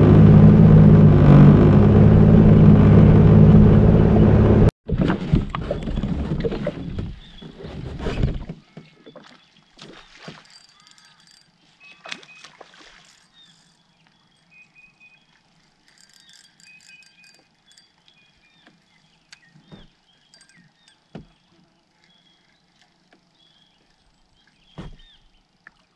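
Jet ski engine running steadily and loudly, cut off abruptly about five seconds in. Then a much quieter stretch with birds chirping and scattered small clicks and knocks.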